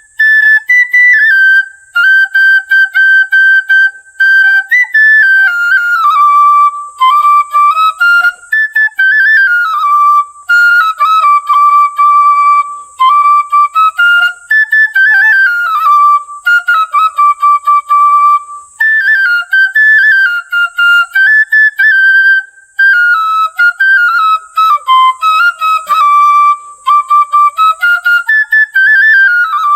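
Bansuri (bamboo flute) playing a solo melody with no accompaniment. It opens with long held notes, then moves into quicker rising and falling phrases with brief breaks between them.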